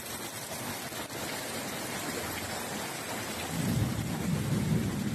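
Heavy rain and floodwater rushing over a flooded street, a steady hiss. About three and a half seconds in, a louder low rumble joins it and keeps going.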